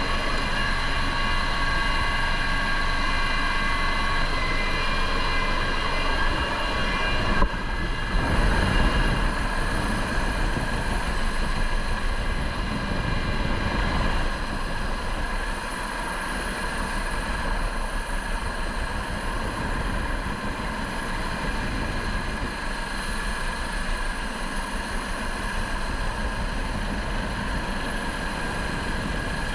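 Cabin noise of a US Coast Guard MH-65 Dolphin helicopter in flight with the side door open: steady turbine and gearbox whine over the rotor noise. About seven seconds in there is a brief loud jolt, after which the high whine is weaker.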